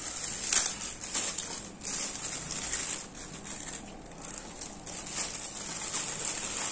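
Eating sounds: chewing with a few sharp clicks, like cutlery on a plate, over a steady high-pitched insect buzz that swells and fades.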